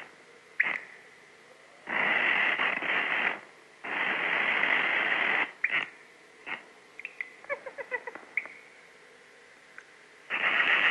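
Early sound-cartoon soundtrack effects for a skeleton at a piano. A few sharp clicks lead into two loud raspy, hissing stretches of about a second and a half each. A quick run of short plinked piano notes follows, and the raspy noise starts again near the end.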